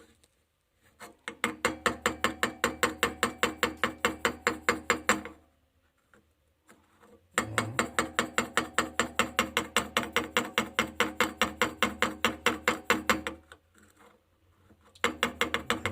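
Rapid, even mechanical clicking at about seven or eight clicks a second, in two runs of several seconds each with a short third run near the end.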